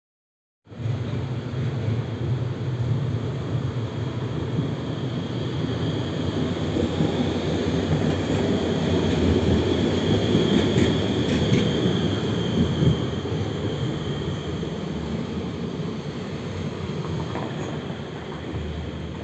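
Electric street tram running past close by: a steady rumble of wheels on rail with a thin high whine over it, loudest about ten seconds in. It starts abruptly under a second in.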